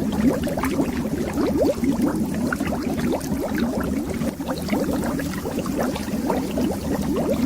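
Underwater bubbles rising in a steady, dense stream: many quick bubbling blips overlapping, each rising briefly in pitch.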